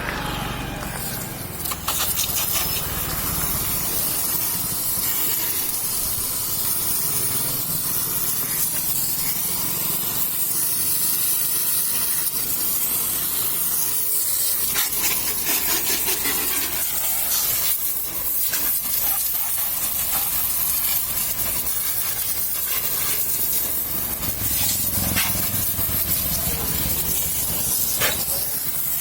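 A steady hissing spray, with a low rumble underneath and a few short clicks.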